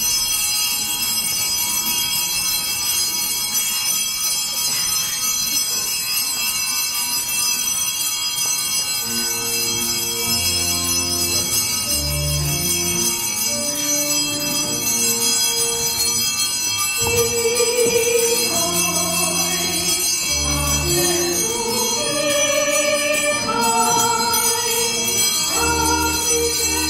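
Church music, most likely a pipe organ: slow, sustained chords with deep bass notes that change every second or so. They begin about nine seconds in, over a steady hiss.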